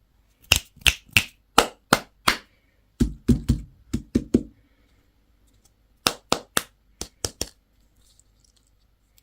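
Sharp taps on a hard object in three quick runs of about half a dozen strokes each, the middle run heavier, with a few duller knocks.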